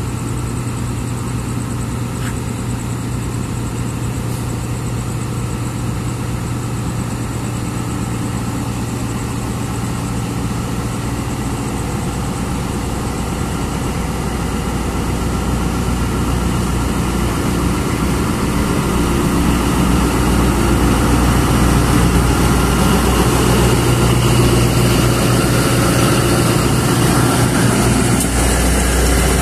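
Pakistan Railways diesel-electric locomotive's engine idling steadily, then running louder and heavier from about halfway through as it throttles up to pull its train out.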